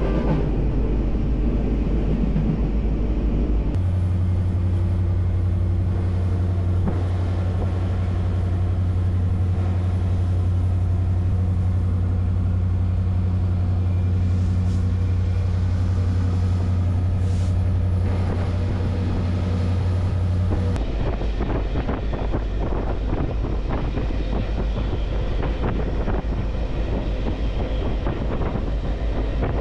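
A moving BNSF diesel freight locomotive: a steady low engine drone with wheel and track rumble. About two-thirds of the way through the drone drops away, leaving a rougher rumble with rapid fine clatter of wheels on the rails.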